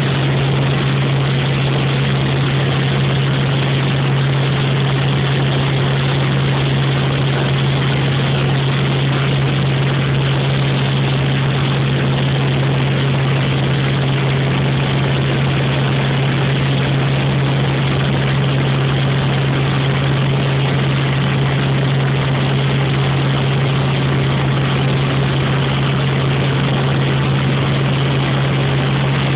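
Helicopter in flight: steady, loud engine and rotor noise with a strong low hum.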